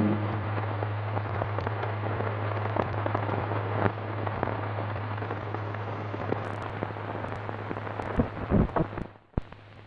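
Optical film soundtrack noise: steady hiss with irregular crackles and pops over a constant low hum, all dropping away suddenly near the end.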